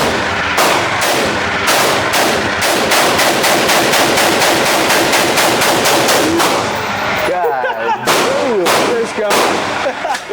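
Gunfire at a shooting range: a rapid string of shots, about four or five a second, lasting several seconds. Slower, spaced single shots come before and after it.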